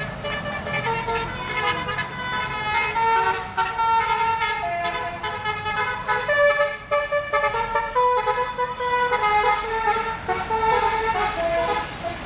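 Bus telolet horn, a set of multi-tone air horns, playing a long tune: several horn tones sound together and step from note to note every fraction of a second.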